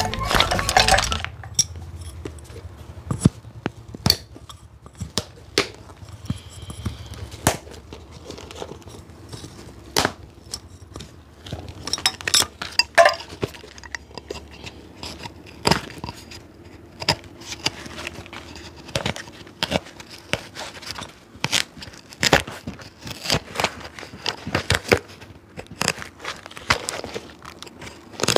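Irregular clicks, taps and rustling from a shoe and cobbler's tools being handled, with now and then a sharper knock.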